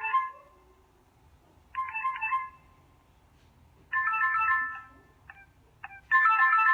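Doro 1360 mobile phone playing ringtone melodies through its loudspeaker as the ringtones are previewed one after another. Each is a short burst of a few bright electronic notes with pauses between, then two brief blips before a longer, louder phrase near the end.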